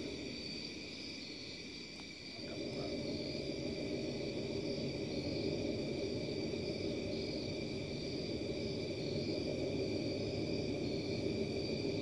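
The unexplained 'strange sound' heard in the sky above a house: a steady drone of several held high tones over a dense low layer. The low layer fades briefly and swells back about two seconds in.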